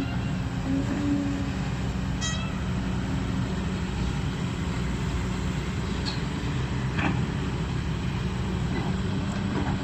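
Kobelco SK200 crawler excavator's diesel engine running steadily under work, with a brief high squeak about two seconds in and two short clicks near the end.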